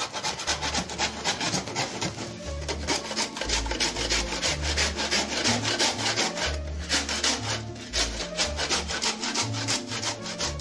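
Butcher's handsaw sawing through the ribs of a half pig carcass to take the belly off the rib section: rapid, even back-and-forth rasping strokes, with a brief lull about six and a half seconds in.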